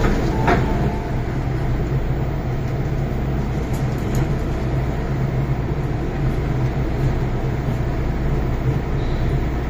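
MTR M-Train electric multiple unit heard from inside the car while running: a steady rumble of wheels on track with a low, even hum. There is one short clack about half a second in.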